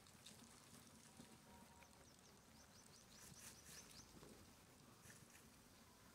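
Near silence: faint outdoor background with a quick run of faint, high chirps a little past halfway.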